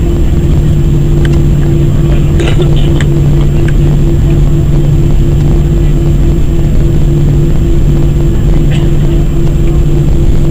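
Airbus A319-100 jet engines at low taxi power heard from inside the cabin: a loud, steady drone with a low hum and a higher steady tone. A few light clicks or rattles come at about two and a half seconds in and again near the end.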